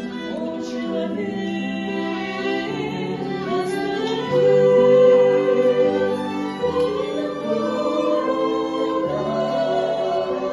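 Music: a Christian song, singing over instrumental accompaniment in long held notes, swelling to a louder sustained note about four seconds in.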